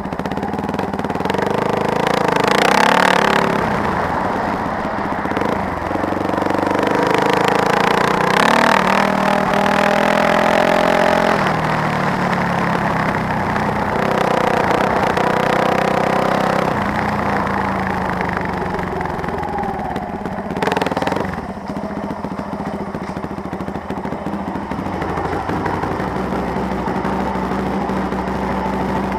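2002 Yamaha YZ426F's 426cc four-stroke single-cylinder engine, heard from on the bike, revving up and down through the gears. For the last several seconds it settles to a steadier, lower run.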